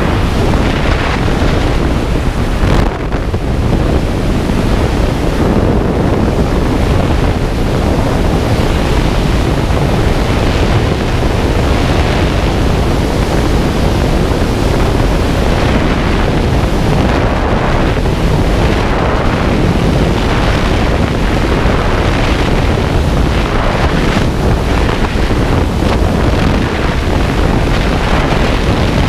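Loud, steady rush of freefall air blasting over a skydiver's camera microphone.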